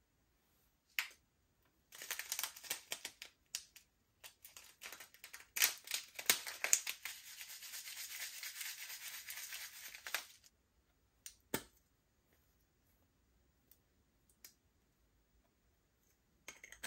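Slime being worked and mixed by hand with makeup colouring: a dense crackly, scratchy rubbing with many small snaps, lasting about eight seconds from about two seconds in. A few sharp clicks come before and after it.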